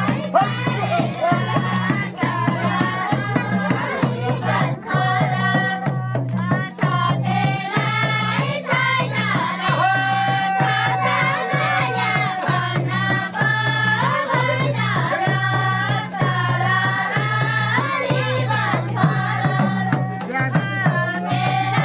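Voices singing a Nepali jyaure folk song, with a madal barrel drum beaten by hand in a steady rhythm.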